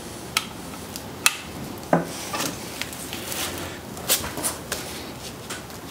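Irregular sharp metallic clicks and knocks from a socket wrench on the camshaft sprocket bolt as the camshaft of a Ford 2.3L four-cylinder head is forced back and forth. The camshaft turns only with force because one of its bearings has seized from lack of oil; it has just been oiled to free it.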